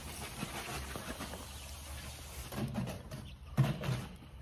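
Faint scrapes and knocks of a steel mason's trowel and stone veneer pieces as mortar is spread on the stone edges and the stone is set, over a low steady hum.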